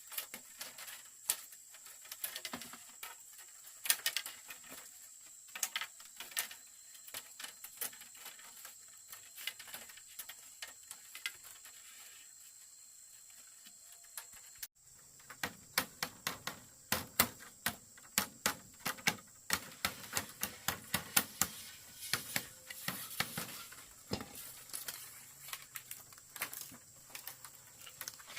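Irregular light knocks and clicks of handwork on bamboo during a floor repair, coming thicker and faster in the second half. A steady high-pitched tone runs underneath.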